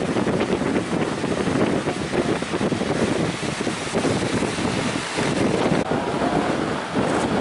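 Strong wind buffeting the microphone over the rush of breaking sea waves, a loud rough noise that surges and eases, dipping briefly about five seconds in.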